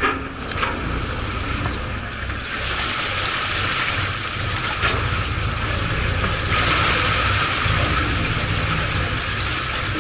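Water rushing and splashing in a boat's live well, louder from about two and a half seconds in and louder again from about six and a half seconds, over the steady low hum of the boat's engine.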